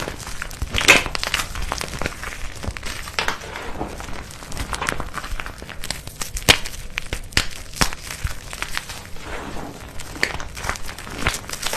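Brittle, crispy material such as dried soap or starch being crushed: a dense, irregular run of crackles and crunches.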